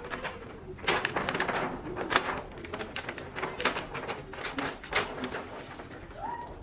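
Irregular run of sharp clicks and taps, several a second, the loudest about one and two seconds in.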